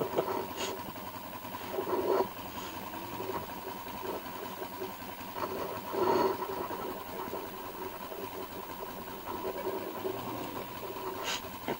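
A vehicle engine running steadily with a constant hum, swelling briefly about two seconds in and again about six seconds in.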